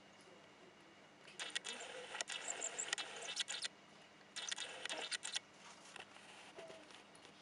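Three-spot gouramis making sounds underwater: two bursts of rapid, crackling clicks, the first starting about a second in and lasting over two seconds, the second shorter, about four and a half seconds in.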